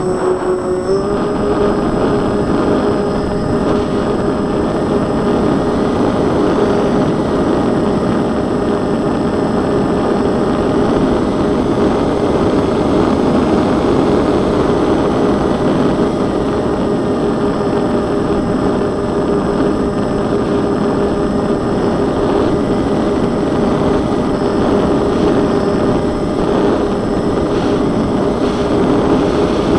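Twin electric motors and propellers of a scratch-built Twinsurfer RC plane running at steady throttle in flight, heard from the onboard camera as a steady whine over rushing air noise. The whine steps up slightly in pitch about a second in, then holds.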